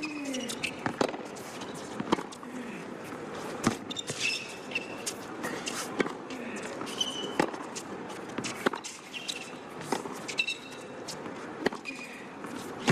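Tennis rally on a hard court: sharp pops of the ball off strings and court about every second to second and a half, with short high squeaks of tennis shoes on the court between hits.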